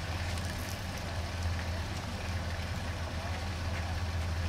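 Minivan engine idling with a steady low hum.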